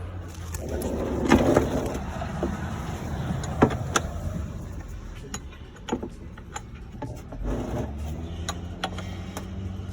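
Scattered metallic clicks and knocks of a wrench being picked up and fitted to an oil-pan drain bolt, with some rustling, over a steady low hum.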